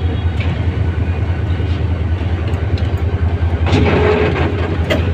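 A 1500 hp diesel locomotive's engine runs with a steady low drone as the locomotive moves over the tracks. A few sharp clicks from the wheels crossing rail joints and points come through, and a steady tone comes in just under four seconds in.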